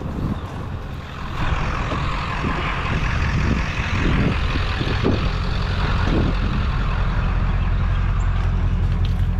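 Vehicle engine and road noise while driving, getting louder from about a second and a half in and then running steadily.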